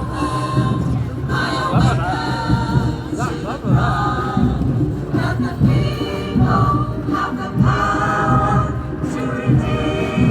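Live street band music: many horns playing at once over a beat.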